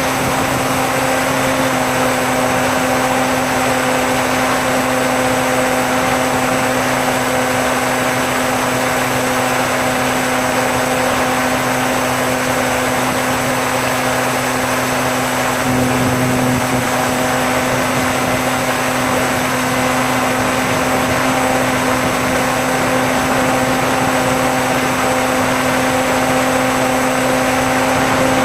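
Electric motor and propeller of a Bixler foam RC plane running steadily in flight, a constant hum with a higher whine over rushing air, picked up by the onboard camera. The tone wavers briefly about sixteen seconds in.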